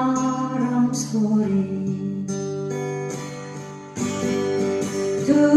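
Acoustic guitar accompanying a sung ballad: the singer finishes a line, then the guitar plays on alone. Its notes fade away until a new strum about four seconds in.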